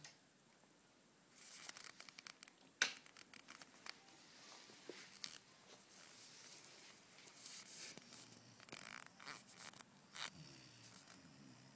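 Quiet rustling and scratchy clicks, with one sharper click about three seconds in. A sleeping puppy's faint snoring begins to come through near the end.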